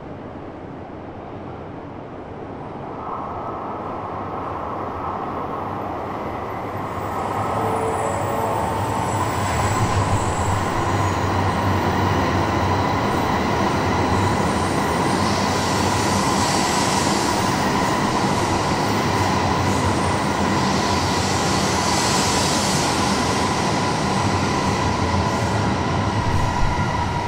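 A Shinkansen bullet train running through the underground Ueno Station platform without stopping. The noise builds over several seconds as it approaches, then holds as a long, loud passing run of rumble and rushing air with a steady high whine over it.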